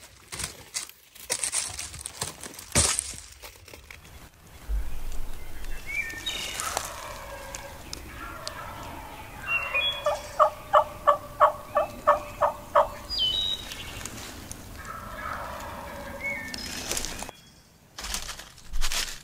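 Wild turkey gobbling twice, each a falling, rattling call. Between the gobbles comes a run of about ten evenly spaced yelps, the loudest sound, and a couple of sharp knocks sound in the first few seconds.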